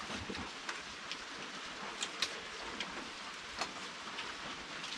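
Steady rain falling, with scattered sharp drop hits on a nearby surface.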